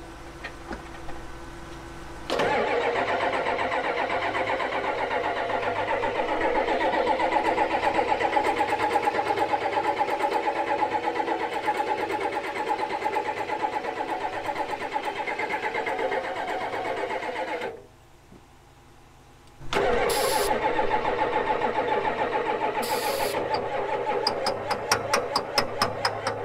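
Ford 7.3 L IDI diesel V8 being cranked by its starter without firing, a fast even churning that runs about fifteen seconds, stops for about two seconds, then starts again. The engine won't start because its injection pump is not delivering fuel. Near the end, as ether is sprayed in, the cranking turns into sharper, louder knocks about three a second.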